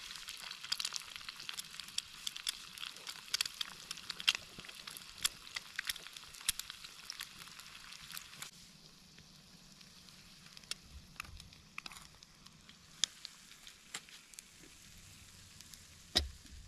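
Eggs with peppers and shallots frying in olive oil in a small pan over a campfire, sizzling with many sharp crackles and pops. The sizzle thins out about halfway through, and a single knock comes near the end.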